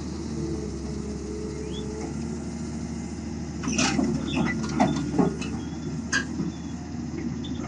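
A machine's engine running steadily, with a scattered run of clicks, knocks and short squeaks in the middle.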